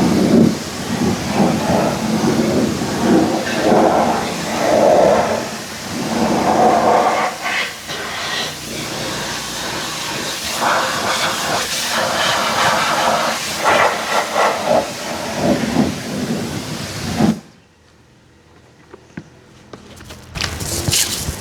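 High-pressure washer spray hissing against a car's body, swelling and fading as the jet moves over different panels. It cuts off abruptly about 17 seconds in, and a few sharp clicks follow near the end.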